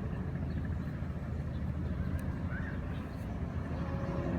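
Steady low outdoor background rumble, with one faint short chirp about two and a half seconds in.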